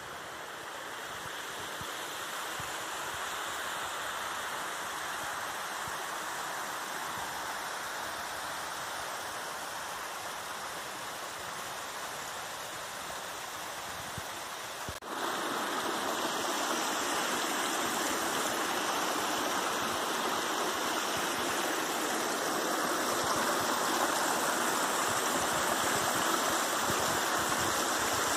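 Small forest creek cascading over rocks: a steady rush of falling water that grows louder and jumps up sharply about halfway through.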